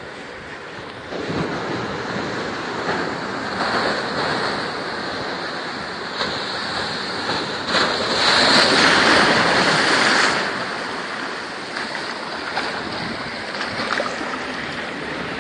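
Ocean surf breaking on a sandy beach and against the boulders of a rock jetty. It grows louder about a second in, and the loudest wave crash comes from about eight to ten seconds in.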